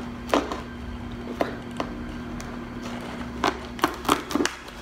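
A blade cutting open the packing tape on a cardboard box: a handful of short, sharp clicks and scrapes, over a steady low hum.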